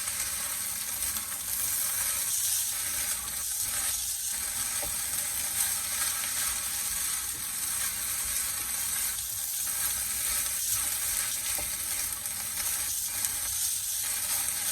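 Corned beef fried rice with vegetables and corn sizzling steadily in a very hot pan over a high flame while it is stirred, with light scrapes and taps of the utensil against the pan.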